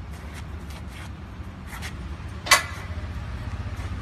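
Steady low hum of the wall-panel installation machine's motor, with light clicks and knocks of a hollow-core concrete wall panel being handled onto its steel frame. About two and a half seconds in, one sharp clunk as the panel comes to rest on the inclined bed.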